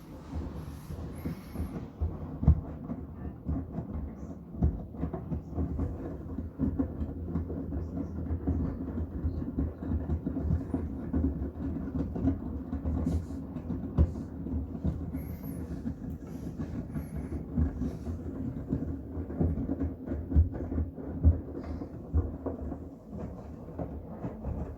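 Miele WCR 870 front-loading washing machine running a cotton wash with bath towels: a steady low hum of the drum motor with many irregular knocks and thuds as the load tumbles.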